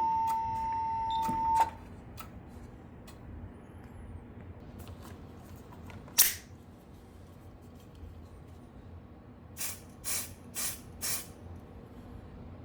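Steady high alert tone from a Siemens Desigo Modular (XLS-V) voice evacuation system's speaker, cutting off suddenly about one and a half seconds in. Low room noise with faint clicks follows, then a short burst of noise in the middle and four short bursts near the end, about two a second.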